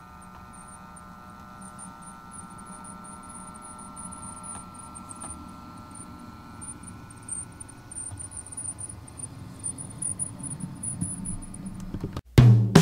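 Bachmann OO gauge class 150 model train running on DCC sound: its decoder plays a diesel multiple-unit engine drone through the model's small speaker, with clicking from the wheels on the track. The sound is faint at first and grows louder as the model passes close by. Near the end it cuts off abruptly and loud music starts.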